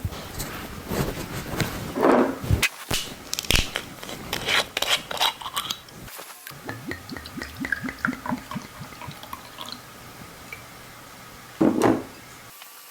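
Table-eating noises: a run of clicks and clatters from oyster shells and tableware over the first six seconds, thinning out afterwards.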